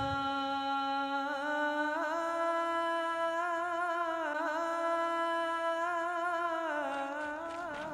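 A single voice chanting long, drawn-out notes with wavering melodic turns, an azan-style call to prayer. It eases off slightly near the end.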